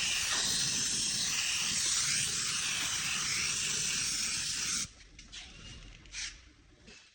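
Spray gun hissing steadily as it sprays automotive primer, shutting off abruptly about five seconds in, followed by a few faint clicks.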